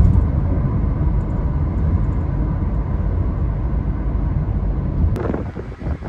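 Steady low rumbling noise with no clear pitch, with a brief knock about five seconds in.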